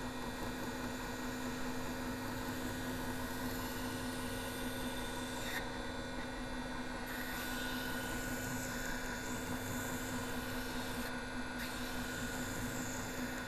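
Vortex Precision belt grinder running steadily with a 180-grit belt, a constant hum, as the hollow of a knife blade is polished against it.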